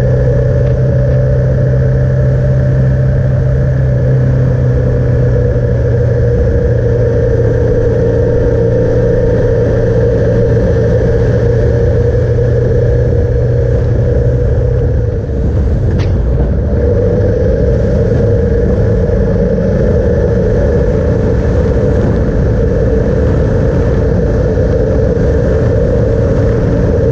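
Motor vehicle engine running steadily at road speed, with road and wind noise. About halfway through the level dips briefly and the low engine tone drops away, as when the rider eases off or changes gear.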